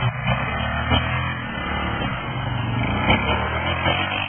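A vehicle engine running steadily, a low hum under a constant noise.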